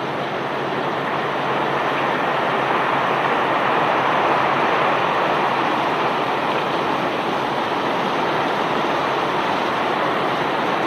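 Bulk cargo from a self-unloading barge pouring off the discharge conveyor: a steady rushing of falling rock, with a low machinery hum underneath.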